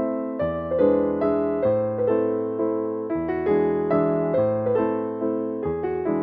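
Background piano music, each note struck and fading away.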